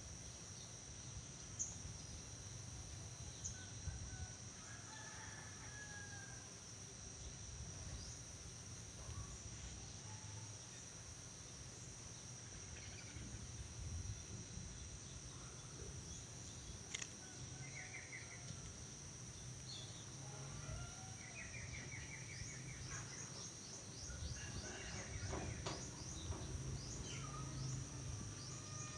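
Outdoor ambience: a steady high-pitched insect drone, with scattered bird chirps and short trills, more of them in the second half, over a faint low rumble.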